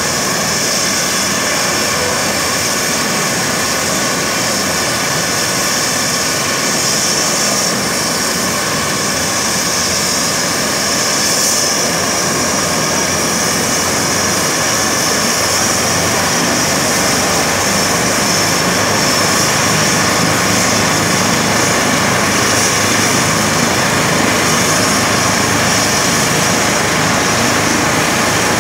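Eurocopter EC135 helicopter running on the ground, its twin turbine engines giving a loud, steady whine and rush, growing slightly louder in the second half.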